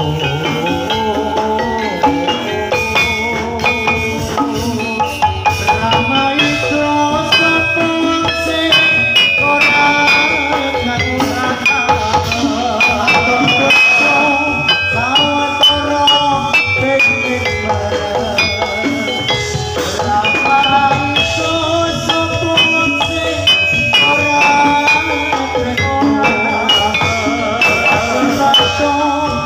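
Live Javanese gamelan music accompanying a jathilan horse dance: metallophones ring out a steady run of short notes over drumming.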